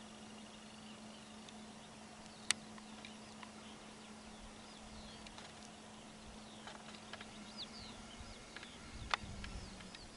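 Faint outdoor ambience with small birds chirping and calling in short high notes, over a steady low hum. Two sharp clicks stand out, the louder about two and a half seconds in and another near the end.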